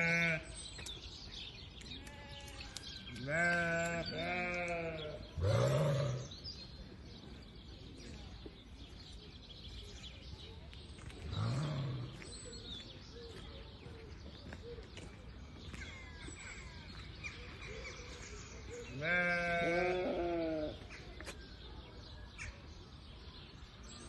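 Sheep bleating several times, with long quavering bleats and a few shorter, deeper calls between them.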